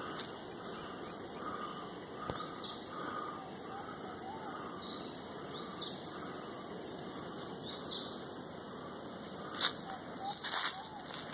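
Tropical forest ambience: birds calling in repeated short notes and quick rising chirps over a steady high-pitched insect drone. A few sharp clicks or knocks come near the end.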